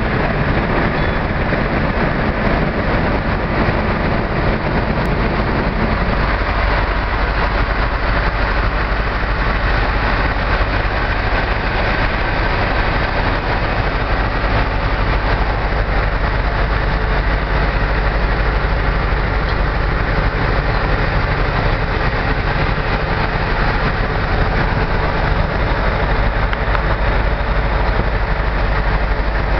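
A large truck engine idling steadily, with a strong low hum under a steady wash of noise.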